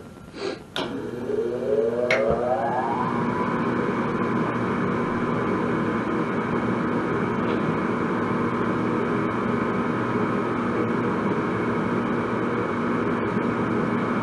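A few sharp clicks, then a gas furnace motor spinning up, rising in pitch for about two seconds and then running steadily. This is the furnace starting on a call for heat with the thermostat bypassed.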